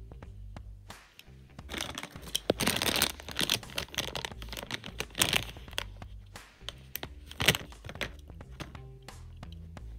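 Plastic blind-bag packaging crinkling in the hands in bursts through the middle, with a last sharp crinkle about seven and a half seconds in, over background music.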